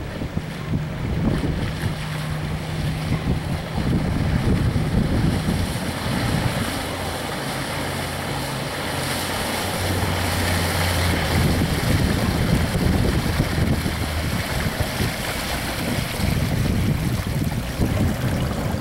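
Outboard motor of a center-console boat running at low speed, a low hum that steps down in pitch a few times, under heavy wind noise on the microphone.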